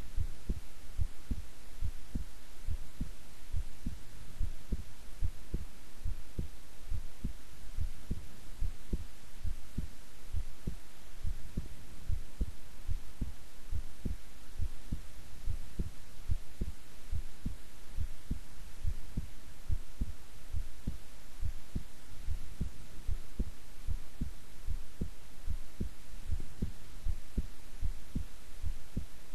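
A woman's heart beating at rest: short low thuds in a steady, even rhythm, over a faint steady hiss.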